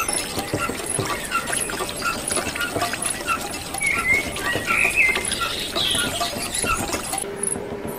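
Many short high chirps and squeaks of small birds, over a steady pattering noise.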